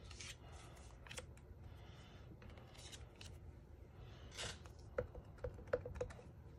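Quiet handling of paper and a clear acrylic stamping block: scattered light clicks and a brief swish, then a quick run of light taps as the stamp is pressed onto an ink pad near the end.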